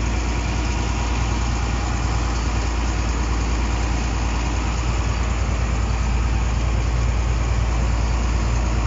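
Diesel engine of a Shantui crawler bulldozer running steadily, heard from inside the cab, with a strong, even low hum.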